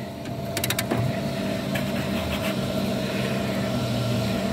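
A steady engine-like drone, with a few light metal clinks about a second in from a spanner on a rusted brake caliper bolt being handled.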